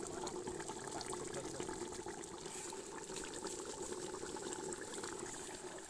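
Mutton curry simmering in a metal pot, a soft steady bubbling.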